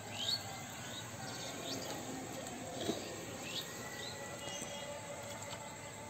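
Outdoor ambience of small birds chirping in short, quick calls, with faint insects trilling under them.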